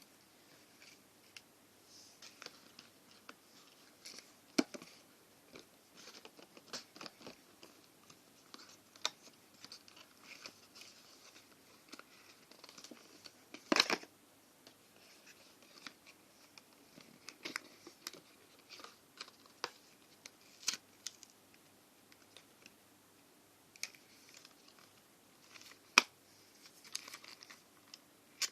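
Unboxing a phone: on-and-off rustling and crinkling of packaging, with scattered sharp clicks and taps, the loudest about halfway through and again near the end.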